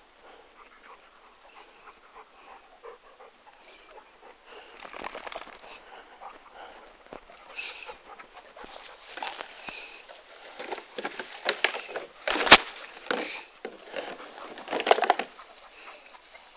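A dog panting and moving about, with rustling and scuffling that gets busier in the second half. One sharp knock comes about twelve seconds in.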